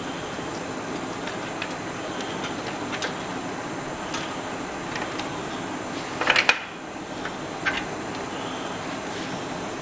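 Small plastic clicks and rattles of power-supply cables and Molex connectors being handled and plugged, with a sharper cluster of clicks about six seconds in and a few more shortly after, over a steady background hum.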